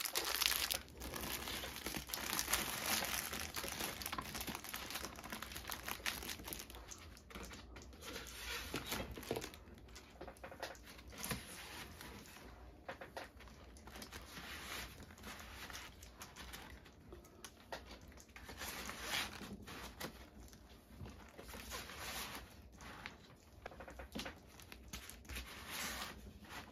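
Plastic packaging and zip pouches crinkling and rustling as they are handled and pushed into a plastic storage crate on a shelf, with small irregular clicks and knocks throughout.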